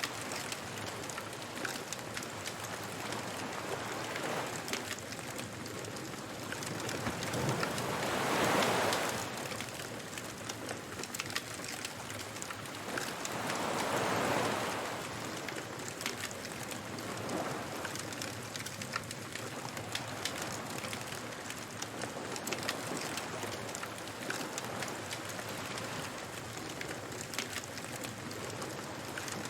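Beach bonfire ambience: a wood fire crackling with a steady hiss of sharp little pops, while waves wash in and swell up twice, about a third of the way in and again near the middle.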